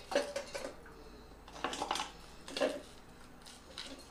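Pieces of fried wheat-dough baati dropped by hand into a stainless-steel mixer-grinder jar, knocking and clinking against the metal in a few scattered clusters.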